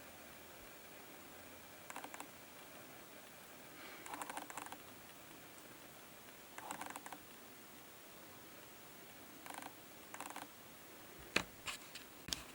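Faint, short runs of light clicking and rattling, like small hard plastic pieces being handled, coming about five times with a few sharper single clicks near the end.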